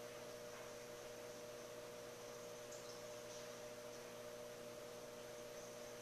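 Faint steady hum with a light even hiss from aquarium equipment running.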